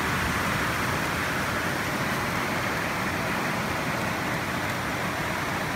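Steady rain on a converted school bus's metal roof and windows, heard from inside the bus as an even hiss.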